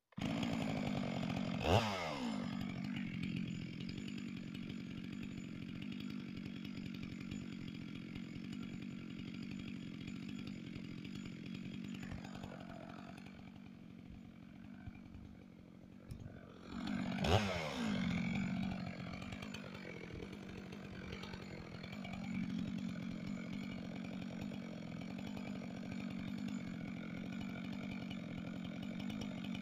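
Chainsaw engine running steadily, with two brief loud surges, about two seconds in and again around seventeen seconds in, each dropping quickly in pitch.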